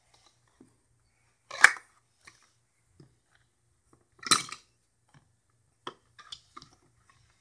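Plastic Lego Duplo bricks being handled, clicking and clattering against each other and the wooden floor, with two louder clatters about a second and a half in and past four seconds, then a few small clicks.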